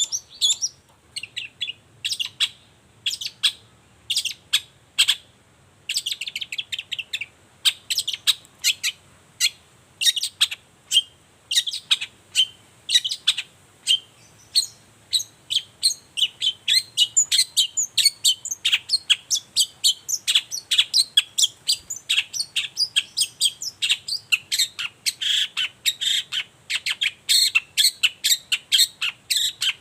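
Long-tailed shrike (cendet) singing a fast chattering song of short, sharp, high notes, several a second, getting denser and busier from about halfway through.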